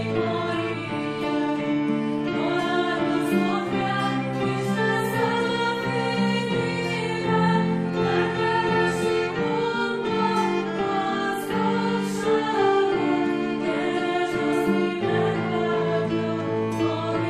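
Two women singing a Christmas song as a duet, holding long notes over an instrumental accompaniment.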